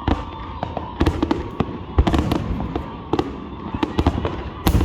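Aerial fireworks going off in quick succession: a rapid string of sharp bangs and cracks over a low rumble, with the loudest bursts about two seconds in and near the end.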